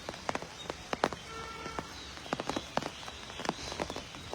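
Steady rain, with drops landing close by as irregular sharp taps.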